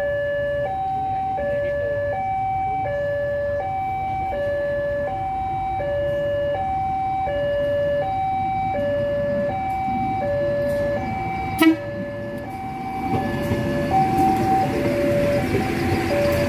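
Railway level-crossing warning alarm sounding a steady two-tone signal, high then low, repeating about every second and a half, warning of an approaching train. About twelve seconds in there is a single sharp bang. After that the noise of the commuter train passing grows under the alarm.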